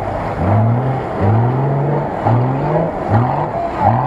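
UAZ-452 'Bukhanka' van's engine revved hard again and again as it drives through deep mud, the pitch climbing with each throttle burst, about five times.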